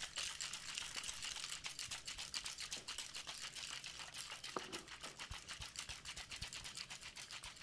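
A little ice rattling quickly inside a copper cocktail shaker during a whip shake, with many soft knocks a second. The clanking is faint, the ice mostly broken down as the drink froths, which is the sign the shake is nearly done.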